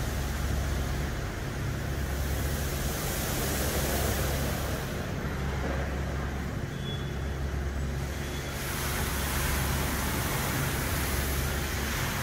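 Brush gantry truck wash running on a tractor-trailer: a steady hiss of water spray and spinning brushes that swells and eases every few seconds, over a constant low mechanical rumble and hum.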